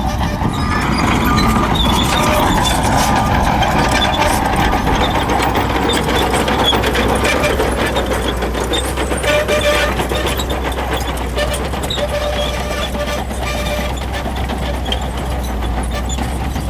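Shantui crawler bulldozer working: its diesel engine runs steadily, with many short clanks and clicks throughout from the moving machine.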